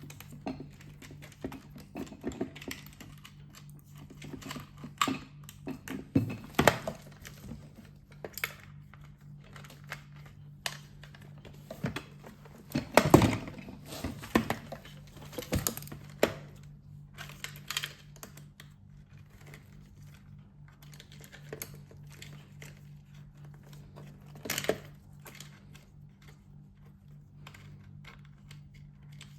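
Scattered light clicks, taps and knocks of plastic parts being handled and fitted while reassembling a Roborock Qrevo 5AE robot vacuum, over a faint steady hum. The loudest knock comes about thirteen seconds in.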